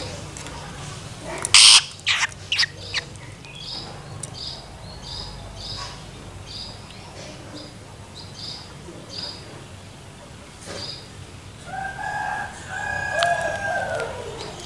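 Juvenile long-tailed shrike giving short high begging calls, roughly two a second, with a few loud sharp knocks about one and a half to three seconds in. Near the end a rooster crows in the background, one long call falling in pitch at its close.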